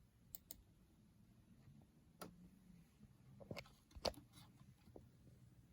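Near silence broken by a few faint, scattered clicks from handling a gaming mouse as its light colours are switched.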